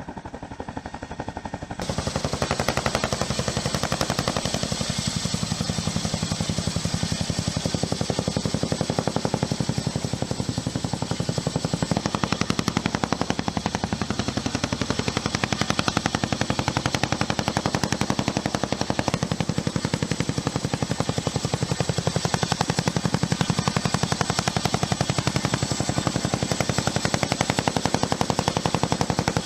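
Boeing CH-47 Chinook tandem-rotor helicopter: the rapid, even chop of its rotor blades with a steady high whine, growing louder about two seconds in.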